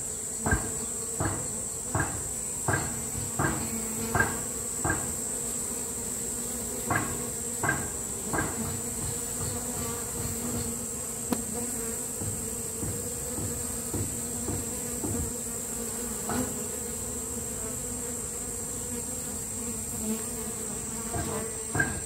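Honeybee swarm humming steadily as it settles at the entrance of a hive box. Over the hum come sharp ticks, about one and a half a second for the first five seconds, three more a little later, and a couple near the end.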